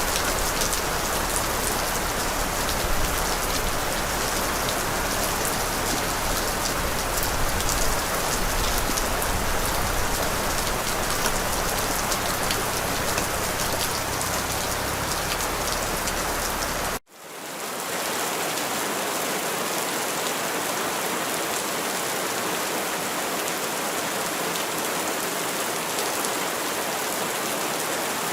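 Steady heavy rain falling on surfaces. About two-thirds of the way through it cuts out for an instant and comes back thinner, without the low rumble, as at a splice between two rain recordings.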